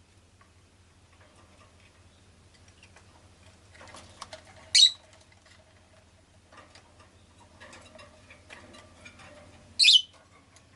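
Rosy-faced lovebird giving two short, shrill chirps about five seconds apart, with faint scattered clicks and rustles in between.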